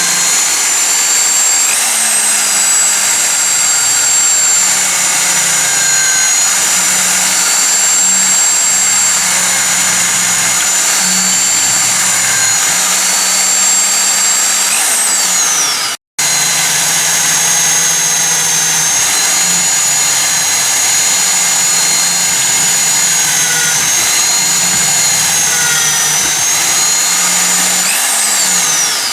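Electric drill running steadily with a high whine, drilling out the rivets that hold a diecast toy caravan's base on. Its pitch falls as it winds down just before it cuts out briefly about halfway, and it winds down again near the end.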